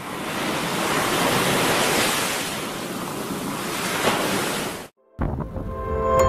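Ocean surf, a steady rushing wash of waves, fading in at the start and cutting off suddenly about five seconds in. Music with clear sustained notes starts just after.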